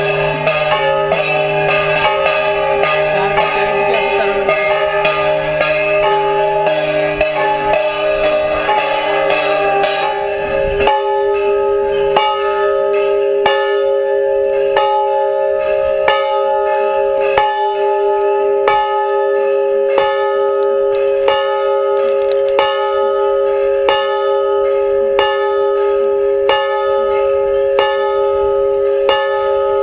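A large hanging temple bell rung by pulling its clapper rope. For the first ten seconds or so the ringing is quick and dense with many tones. After that the clapper strikes evenly, a little more than once a second, and the bell's hum rings on steadily between strokes.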